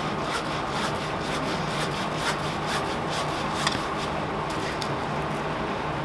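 Foam sponge brush rubbing and scraping Mod Podge over the faceted resin drills of a diamond painting, with many small scattered clicks and one sharper click a little past halfway. A steady low hum runs underneath.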